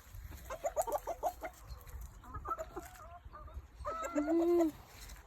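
Chickens clucking in quick runs of short notes, with one longer drawn-out call about four seconds in.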